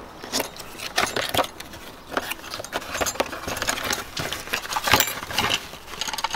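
A small cardboard box being opened by hand, its flaps and inner cardboard insert scraping and crinkling with irregular sharp taps.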